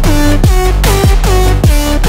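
Electronic dance music with a steady beat: deep bass notes sliding downward about twice a second under a repeating synth pattern.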